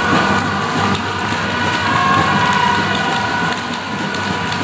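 Loud, steady din of spectators in a shooting hall, with several sustained horn-like tones held over the crowd noise.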